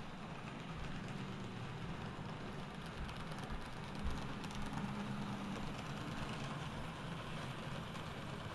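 N-scale model trains running on the layout track: a steady low motor hum with a light hiss and rattle of wheels on rail.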